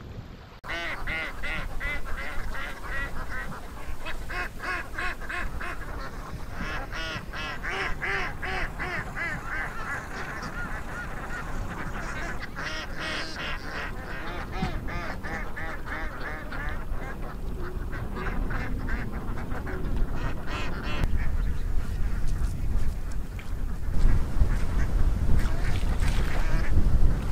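A chorus of many short, rapidly repeated animal calls that thins out and stops about three-quarters of the way through, followed by low, steady noise.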